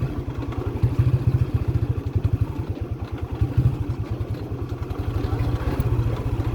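Small engine running steadily, its firing heard as a rapid, even low pulsing, with some rattle.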